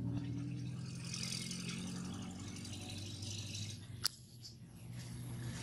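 Steady low engine hum, with a rustling hiss over the first few seconds and one sharp click about four seconds in.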